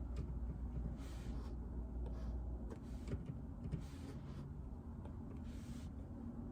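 Quiet desk sounds: four or five soft swishing strokes, each about half a second long, and a few scattered light taps, over a low hum that fades about a third of the way in.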